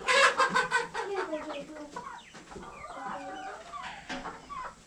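Chickens clucking and calling, loudest in the first second, then a run of wavering calls.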